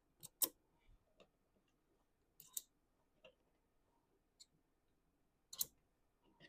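Scattered light clicks and taps of small hardware and parts being handled while a rotary attachment is assembled: two near the start, a pair about two and a half seconds in, single ticks after, and a louder click near the end.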